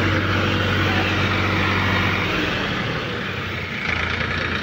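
Sonalika tractor's diesel engine running steadily as it tows a trolley over rough dirt. The engine hum dips a little past halfway and comes back near the end.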